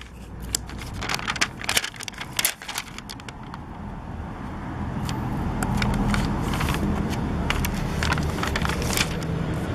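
Crackling and clicking of a clear plastic sticker sheet and puffy stickers being handled. A steady low rumble rises about halfway through and stays.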